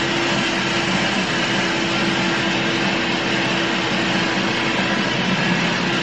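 A loud, unidentified droning noise: an even rushing hiss with a steady low hum running through it, holding constant without a break.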